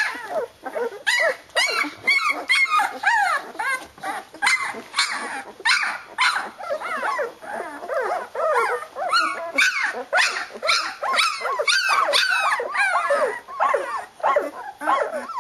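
Several 13-day-old flat-coated retriever puppies crying and yelping over one another without pause, a din of short high calls that rise and fall in pitch.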